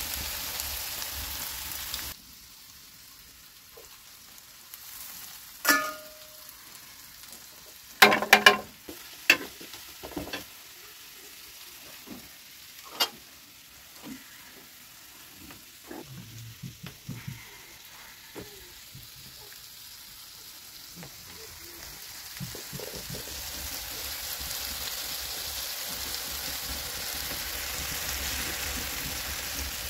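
Chopped onion and tomato frying in oil in a pan over a wood fire: a steady sizzle that drops away about two seconds in and builds back up over the last third. A few sharp knocks and clatters sound in the middle, the loudest cluster about eight seconds in.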